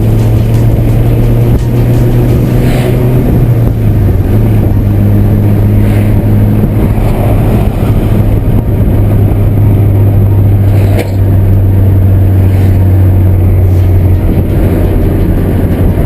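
VW Santana's AP 2.0 four-cylinder engine and exhaust droning steadily under way. The note holds at a constant pitch, shifting slightly about four seconds in and again near the end.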